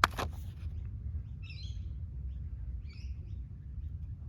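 A short, sharp rustle of handled paper right at the start, then two brief bird chirps in the background about a second and a half apart, over a low steady hum.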